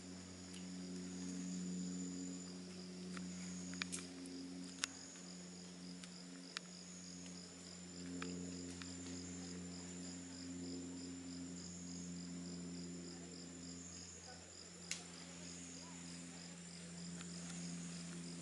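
Insects calling in the rainforest: a steady high-pitched buzz with a fainter pulsing chirp at about three pulses a second, over a low steady hum. A few sharp clicks stand out, the loudest about 15 seconds in.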